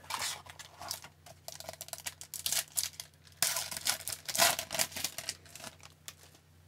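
Foil wrapper of a hockey card pack crinkling and tearing as the pack is pulled from the box and ripped open: a run of irregular crackly rustles, loudest about three and a half to four and a half seconds in, then fading out near the end.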